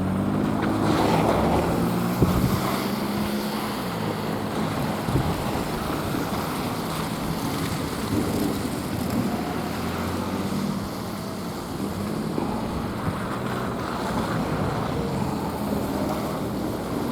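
Diesel railcar engines of a KiHa 48/KiHa 40 train droning and fading over the first few seconds as the train moves away. A steady rushing noise of wind on the microphone remains.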